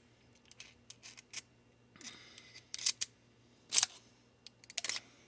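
Scattered sharp metallic clicks and short scrapes of small hand tools being handled while working at a tight screw on a padlock, with the loudest clicks about three and four seconds in and a quick cluster near the end.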